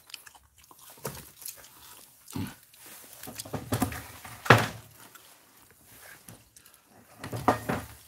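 Scattered rustling and light knocks from paper and foil being handled at a tabletop grill, with some chewing. The loudest sound is a short knock about four and a half seconds in.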